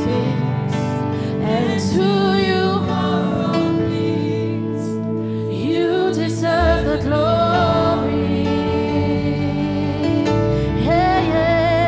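Slow worship music from a live church band: held keyboard chords under a singer's long, wavering sung phrases, with a low bass coming in about halfway through.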